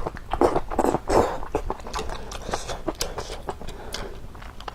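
Close-miked chewing and wet mouth clicks of someone eating a konjac knot, louder and busier in the first second or so, then a run of small clicks.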